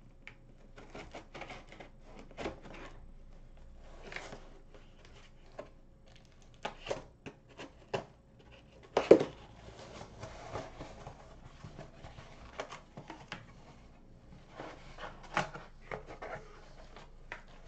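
Cardboard package being worked open by hand: irregular scrapes, rustles and clicks of handling, with one sharp knock about nine seconds in.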